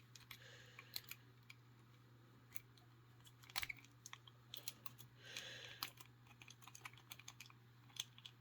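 Faint, irregular metallic clicking and scraping of a city rake being worked over the pins inside a discus padlock's keyway, against a tension wrench, shortly before the lock opens.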